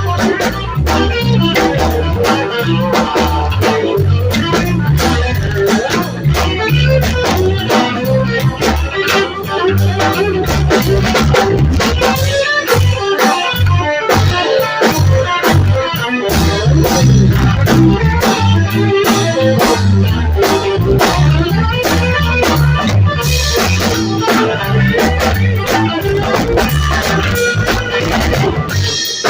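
Live band jamming: electric guitar, bass and drum kit playing together loudly and steadily.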